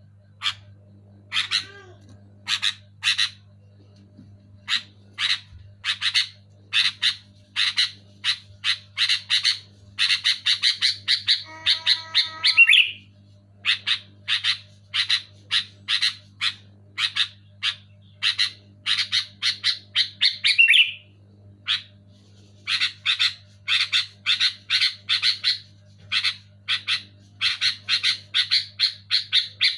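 Sooty-headed bulbul calling loudly and excitedly: rapid runs of short, sharp notes in bursts, one after another with brief pauses, over a faint steady low hum.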